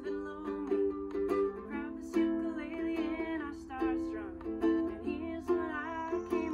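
A ukulele strummed in steady, rhythmic chords in the key of C, with a woman singing along.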